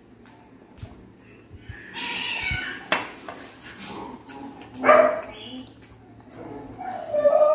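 A domestic pet crying: a drawn-out pitched call about two seconds in, a shorter sharp one near five seconds, and another run of cries starting near the end.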